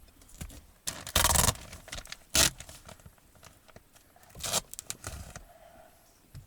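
Insulation being handled and pushed up under a wooden floor: scraping and tearing in several short bursts, the loudest about a second in.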